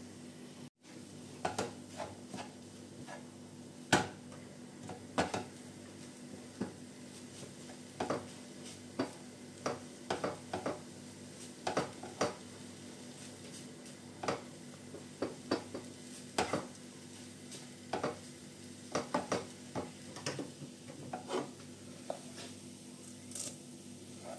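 A spoon knocking and scraping against a frying pan and a steel bowl as sautéed cauliflower crumbs are stirred and transferred into beaten eggs: irregular clinks and taps, one or two a second, over a faint steady hum.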